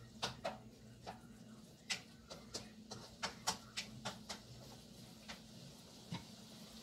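Spatula stirring diced sausage, potato and carrot in a nonstick wok: a run of quick clacks and scrapes against the pan that thins out after about four and a half seconds, with two last taps near the end, over a steady low hum.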